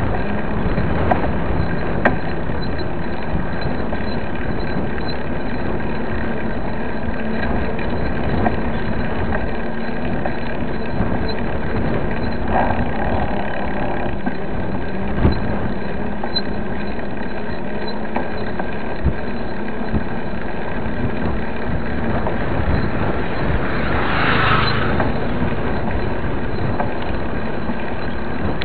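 Steady rushing of wind over a bike-mounted camera microphone, mixed with the tyre noise of a mountain bike rolling on asphalt. A few short knocks and rattles from the bike, and a brief swell of noise near the end.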